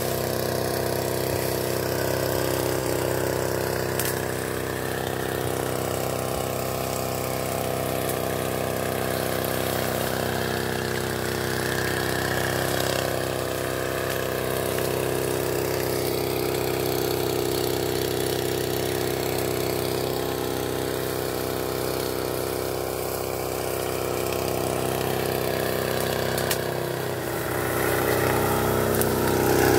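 Small engine of a motorized backpack sprayer running steadily while herbicide is sprayed on weeds, growing louder near the end.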